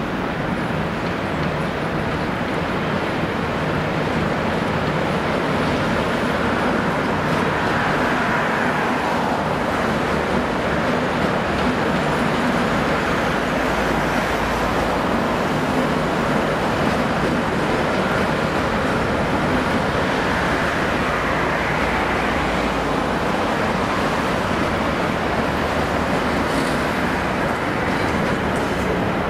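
Steady road traffic noise, continuous and even, with faint rising and falling whines at times, mixed with a slow-moving steam-hauled train.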